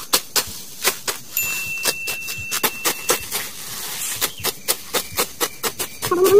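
A hand sickle cutting grass stems: an irregular run of crisp snips, several a second.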